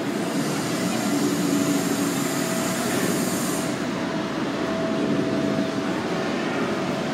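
Replica steam locomotive venting steam with a steady high hiss that cuts off abruptly a little over three and a half seconds in, over the murmur of a crowd on the platform.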